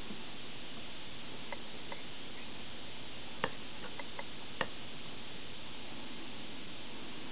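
Steady hiss with a few light clicks and taps scattered through it, the two loudest about three and a half and four and a half seconds in.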